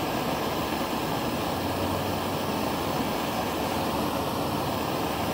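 A MAP-gas Bernzomatic hand torch burning with a steady rushing hiss as its flame heats a shrink-fit tool holder, expanding the bore so the carbide ball end mill can be pushed in.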